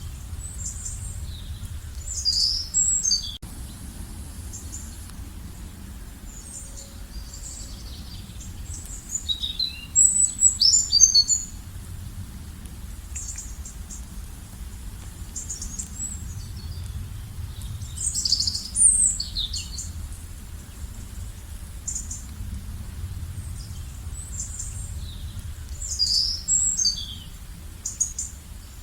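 Songbirds singing in short bursts of high, quick chirps and trills, a phrase every seven or eight seconds, over a steady low rumble.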